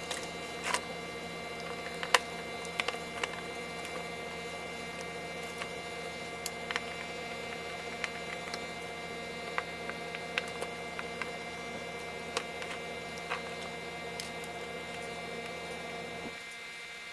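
Steady electrical hum made of several fixed tones, with scattered light clicks and taps from small parts being handled on a workbench. The low part of the hum drops out near the end.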